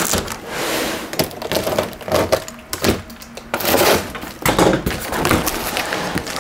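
Cardboard box of a flat-packed metal shelving unit being pulled open and unpacked: rustling and tearing cardboard with repeated sharp knocks and clatter as the packed parts are handled.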